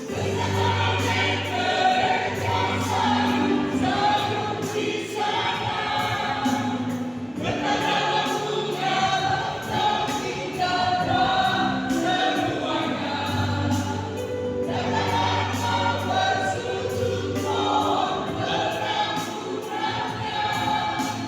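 A church choir singing a hymn in harmony, in long held phrases with brief breaks between them.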